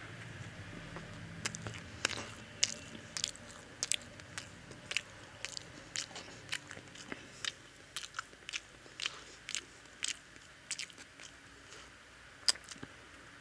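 A person chewing crusty egg-dipped toast close to the microphone: a run of sharp crunching clicks, roughly two a second, starting about a second and a half in, with one louder crunch near the end.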